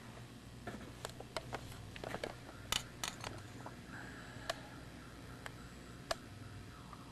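About a dozen small, sharp clicks and taps at uneven intervals, bunched around the middle, over a faint steady low hum.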